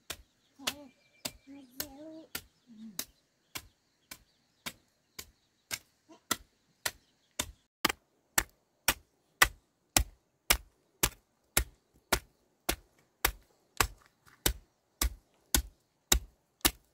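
Garden hoe striking the soil in a steady rhythm, about two blows a second, the blows growing louder over the first half. A small child's voice is heard briefly in the first few seconds.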